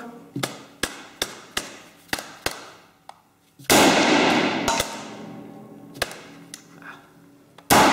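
ISSC M22 blank-firing pistol: about six sharp clicks, a little under half a second apart, as the trigger is pulled without the gun going off, then a sudden loud bang a little past the middle whose noise trails off over several seconds. The failures to fire are the sign of the trigger timing problem the shooters blame, where the hammer only releases at the very end of a hard, full pull.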